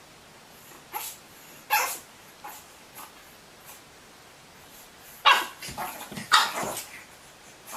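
A pet animal giving a series of short, sharp calls. A few quieter ones come in the first seconds, then louder ones about five to seven seconds in.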